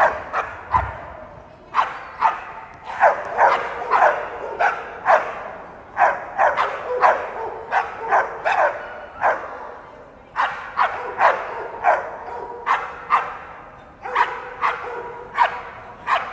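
American Pit Bull Terriers barking repeatedly in short, sharp barks, with a couple of brief pauses.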